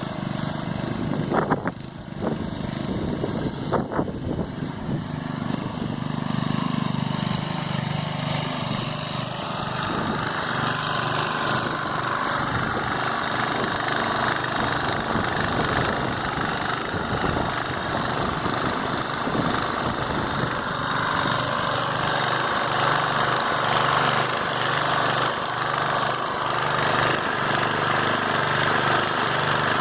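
Small Briggs & Stratton gasoline engine running steadily, driving the pump of a John Deere 5B sprayer, with the hiss of the water spray rising about ten seconds in and holding steady. A few sharp knocks in the first few seconds.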